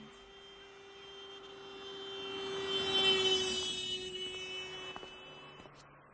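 A steady droning hum with a high whine above it, swelling to its loudest about three seconds in and then fading out before the end.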